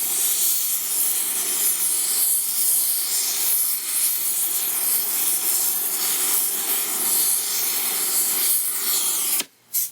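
Gas torch flame hissing steadily while heating a drilled broken bolt to loosen it, then shut off suddenly near the end.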